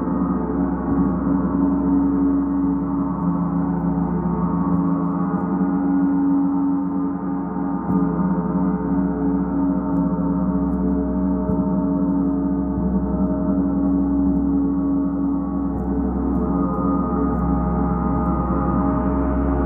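Large hanging gong played continuously with a soft felt mallet, sustaining a steady, shimmering wash of many overlapping tones over a low hum. It grows a little brighter near the end.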